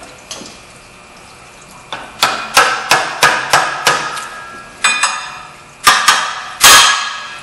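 Hammer blows on a wrench fitted to the water pump fan nut, sharp metal-on-metal strikes with ringing: a quick run of about six at three a second, then several more spaced out, the loudest near the end. The strikes are knocking loose the left-hand-threaded fan nut.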